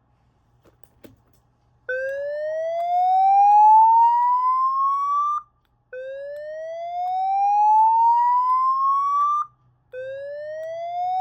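Gentex SPKE8-15/75CW ceiling-mount fire alarm speaker sounding the slow whoop evacuation tone: rising sweeps, each about three and a half seconds long, beginning about two seconds in and repeating every four seconds, the signal for a reported fire in the building. A faint click about a second in.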